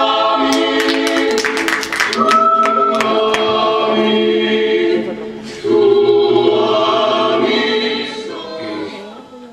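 Choral music with long held sung chords, with a quick run of sharp percussive clicks about half a second to three seconds in.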